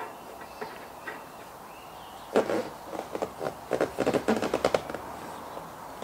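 Mazda MX-5 fitted with a Cube short shifter, the gear lever being snapped through the gears: a quick run of sharp clicks and clunks starting about two seconds in and lasting nearly three seconds.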